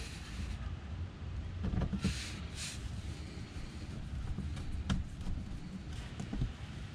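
Faint clicks and scraping of a screwdriver driving the Phillips screws into the plastic underbody cover, over a low steady background rumble.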